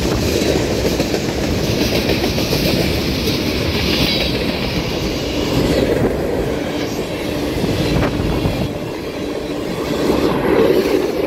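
Freight train of tank cars rolling past: steady steel-wheel noise on the rails, with wheels clicking over rail joints.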